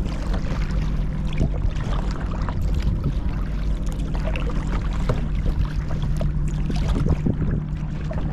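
Kayak paddling: the blades of a double-bladed paddle dip and splash in the water, with irregular drips and trickles between strokes, over a steady low rumble.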